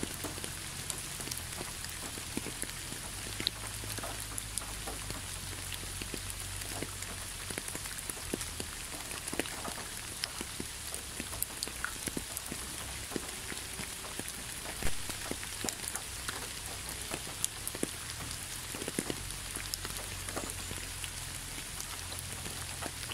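Steady rain falling, with many single drops ticking close by over an even hiss; one louder drop lands about 15 seconds in.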